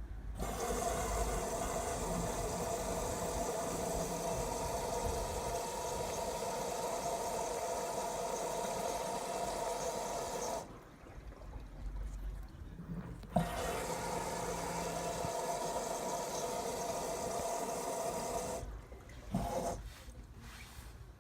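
LG Tromm WD-CR101C front-loading washing machine taking in water through its inlet valve: a steady rush of water with a hum in it. It cuts off about ten seconds in, starts again a few seconds later, and stops shortly before the end.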